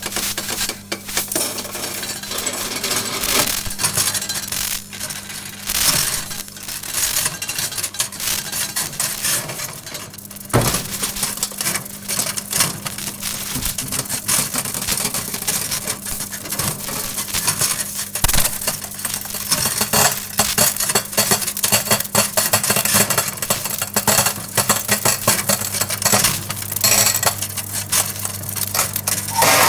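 Several metal forks arcing inside a running microwave oven: dense, irregular crackling and snapping over the oven's steady low hum. A few sharper, louder snaps stand out, about ten and eighteen seconds in.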